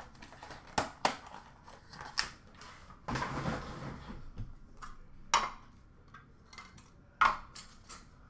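Clear plastic card cases and packaging being handled on a counter: a string of sharp clicks and knocks, with about a second of rustling and scraping about three seconds in.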